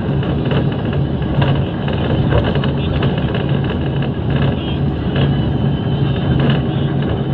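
Bus engine and road noise heard from inside the passenger cabin while the bus drives along the road: a steady low hum under a constant rush of tyre and wind noise.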